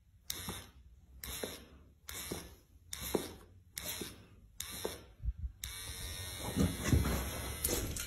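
Electric hair trimmer buzzing in six short bursts, about one a second, as it is switched on and off, then left running steadily for the last couple of seconds.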